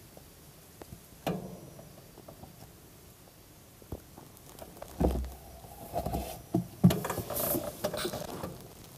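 Oil pouring and glugging from a plastic jug into a funnel, with small knocks of the jug against the funnel. A single knock comes a little over a second in; the pouring gets louder and busier from about five seconds in until near the end.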